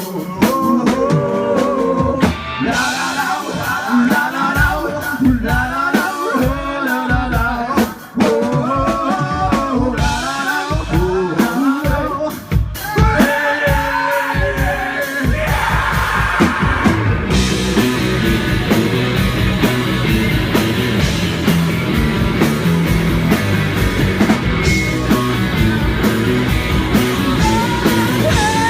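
Live rock band with a singer: a sung line over drums and guitar for about the first fifteen seconds, ending on a held note, then the full band takes over, denser and steadier.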